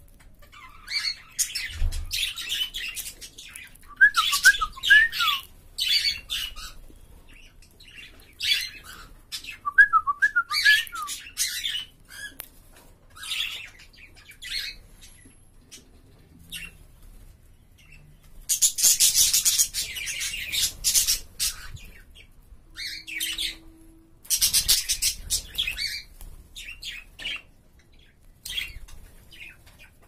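Budgerigars and cockatiels in an aviary chirping and chattering in short, quick bursts, with a few fast warbling notes early on and a longer, denser spell of chatter about two-thirds of the way in.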